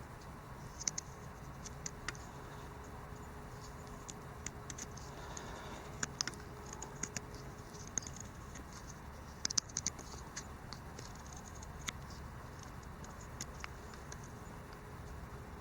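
Small knife blade slowly carving a wedge-shaped notch into a piece of wood: faint, irregular scrapes and sharp little clicks as thin chips are pared away, a busier cluster about two thirds of the way through.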